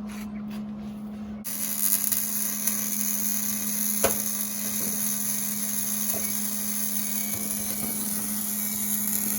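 Power tool starting about a second and a half in and running steadily with a high-pitched whine and hiss, over a constant low hum; a single sharp knock about four seconds in.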